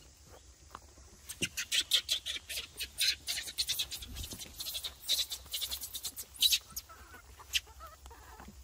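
Dry leaves and grass crunching and rustling underfoot as someone walks through undergrowth. It is a quick, irregular run of crackles that starts about a second in and stops at about seven and a half seconds.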